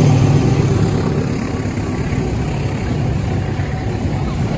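Freight train passing close by: the diesel locomotive's engine moves off, followed by the steady rumble of container flatcars rolling over the rails.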